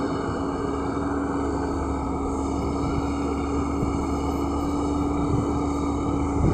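LiuGong crawler excavator's diesel engine and hydraulics running steadily as it works, a continuous drone with a constant tone through it.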